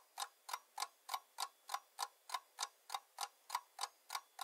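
Clock-like ticking sound effect, evenly spaced at about three ticks a second, serving as a quiz timer that counts off the time given to spot the hidden animal.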